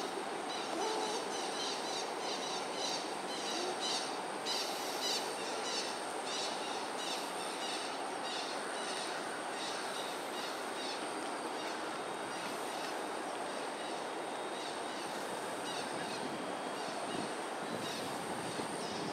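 Outdoor ambience: a steady background hiss with a thin high whine, and a rapid run of short high chirps repeating a few times a second that thins out about halfway through.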